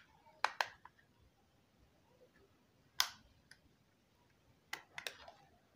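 Plastic back cover of a Symphony D40 feature phone being pried off by fingernail: several sharp plastic clicks and snaps as its clips let go and the cover is handled, in small groups spread over a few seconds.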